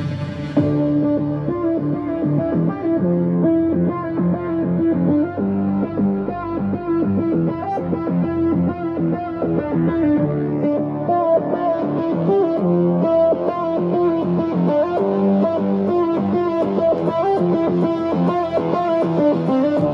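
A guitar song played back through a Tronsmart Element Force+ portable Bluetooth speaker at 70% volume with its second equalizer preset, a full sound with steady bass.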